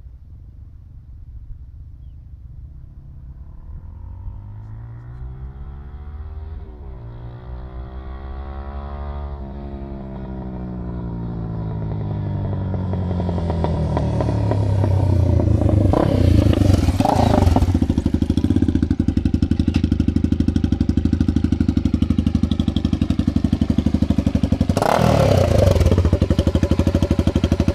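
Honda CB300R single-cylinder motorcycle engine with an aftermarket exhaust tip, giving a loud exhaust note. Over the first half it grows steadily louder while its pitch rises and falls with the throttle. It then runs steadily loud, with two sharp revs, one about two-thirds of the way in and one near the end.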